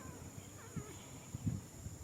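Baby macaque's crying calls. A falling cry trails off right at the start, a faint short call follows under a second in, and there is soft rustling and bumping about one and a half seconds in, between louder bouts of arched, whistle-like cries.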